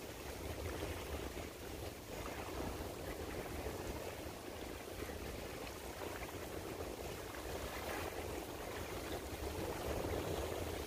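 Steady outdoor night ambience: a continuous even wash like running water, with a low rumble underneath and no distinct events.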